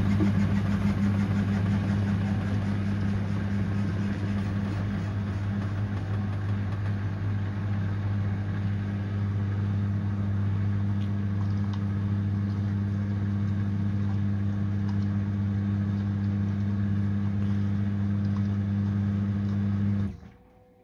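Samsung front-loading washing machine in its prewash stage, a steady low mains hum from the machine with water swishing in the drum, the typical sound of the drain pump emptying the drum before the spin. The sound cuts off suddenly near the end.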